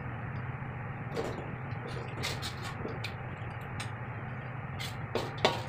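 Metal spatula scooping cooked tempeh out of a metal wok into a metal bowl, with light scrapes and taps and a sharper ringing clink near the end, over a steady low hum.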